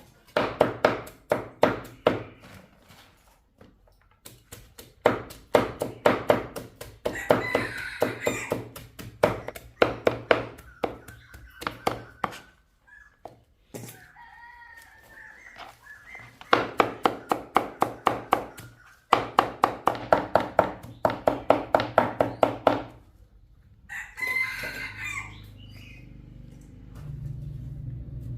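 Rapid, even knocking at about five strokes a second, in runs of a few seconds with short pauses. A rooster crows a few times between the runs.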